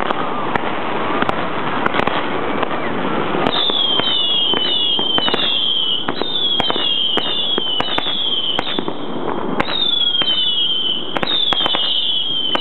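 A firework fountain hissing and crackling, then from about three and a half seconds in a quick run of whistling fireworks. Each is a short falling whistle, about two a second, with sharp pops between them.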